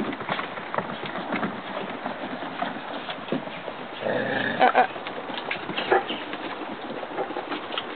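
Many puppies' claws clicking and scrabbling on a wooden deck as the litter crowds around their mother, with a brief high puppy squeal about four seconds in.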